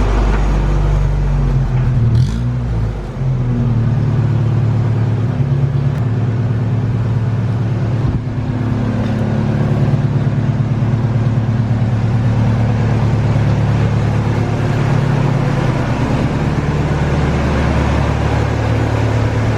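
1985 Toyota 4Runner's four-cylinder engine running steadily, with a brief change in pitch about two to three seconds in. It is almost silent, without the noise the owner blames on worn timing chain guides.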